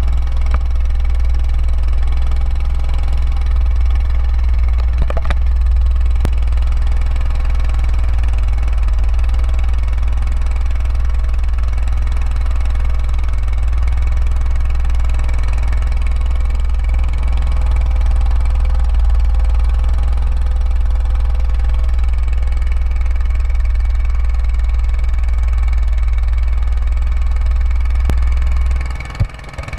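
Small wooden fishing boat's engine running steadily under way, a constant low drone that drops away near the end.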